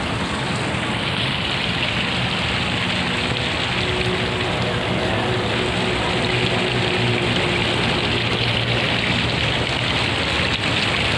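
Water splashing steadily from a tiered stone fountain into its basin, a continuous even rush, with a faint low hum underneath.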